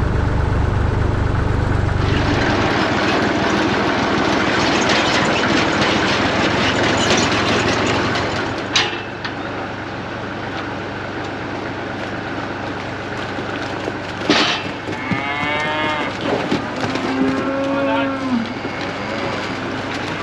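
Cattle mooing, several calls that bend in pitch in the second half, one of them long and low. It is preceded by a tractor engine's low hum that stops about two seconds in, a stretch of rushing noise, and two sharp knocks.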